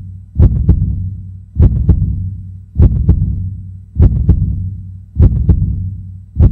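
Heartbeat sound effect: a deep double thump, lub-dub, repeating about every 1.2 seconds, six times, over a low steady drone.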